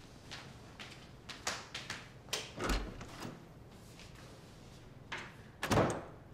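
Footsteps walking away, then a wooden interior door pushed shut, closing with a knock and a latch click near the end.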